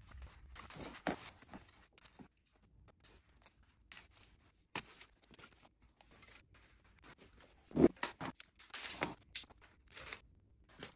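Scissors snipping and packing material being pulled off a bike frame: scattered clicks and short rustles, loudest and busiest about eight to nine seconds in.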